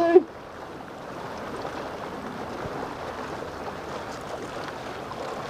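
Steady hiss of small splashes on the sea surface around a kayak, where a school of ladyfish is feeding on tiny minnows.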